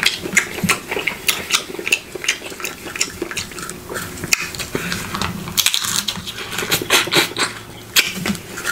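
Snow crab legs being cracked and picked apart by hand, close to the microphone: a run of irregular sharp clicks and crackles of breaking shell as the meat is worked out.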